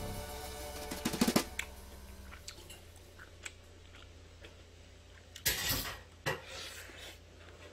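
A person eating tuna kimchi fried rice: close-up chewing with a few sharp clicks, loudest a little after halfway. Background music fades out in the first couple of seconds.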